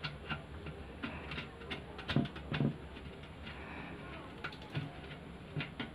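Small clicks and taps of fingers fitting and hand-tightening a nut on a socket in a sheet-metal amplifier cabinet panel, with two louder knocks a little after two seconds in.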